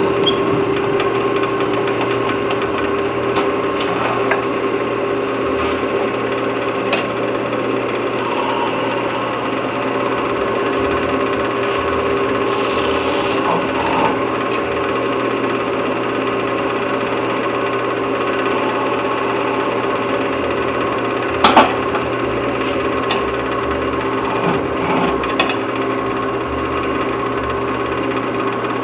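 Wood lathe motor running steadily while a turning tool cuts the spinning wood. A brief sharp double knock comes about three-quarters of the way through.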